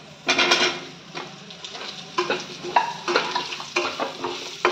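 Raw potato cubes dropped into hot mustard oil in a kadai, bursting into a loud sizzle, then frying with a steady sizzle while a steel spatula scrapes and clicks against the pan every second or so.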